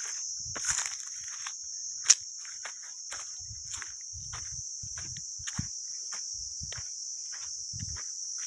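Steady high-pitched insect buzzing of crickets or cicadas in the trees, over uneven footsteps crunching on dry leaves and soil. A single sharp click about two seconds in.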